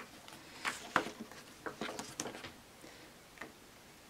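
Glossy rulebook pages being turned by hand: a run of quick paper rustles and swishes with one sharp snap about a second in, then one more short rustle near the end.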